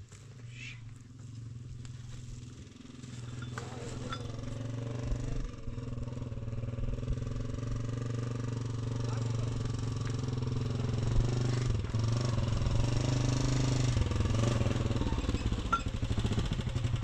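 A motor vehicle's engine running steadily and growing louder as it draws near.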